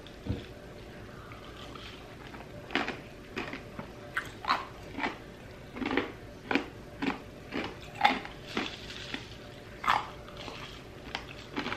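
Crushed ice being chewed, a run of short crunches about two a second.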